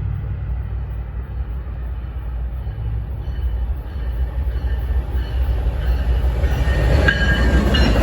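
Ethanol freight train rolling by with a steady low rumble that grows louder. Thin wheel squeal and a few sharp clicks come in near the end.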